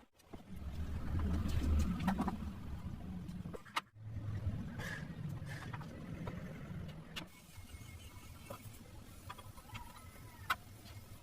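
A car's engine running low and steady, broken off abruptly twice, then quieter with a few light clicks and knocks.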